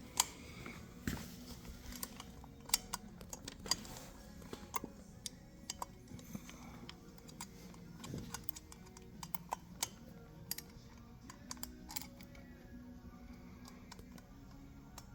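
Irregular small metallic clicks and taps of a spacer, bolt and speed ring being handled and lined up against a brake rotor, over faint background music.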